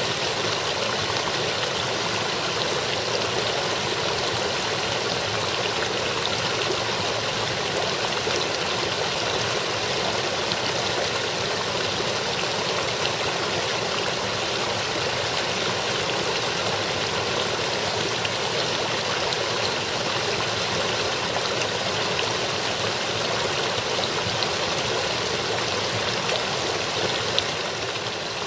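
Water of a partly iced-over brook babbling steadily over rocks.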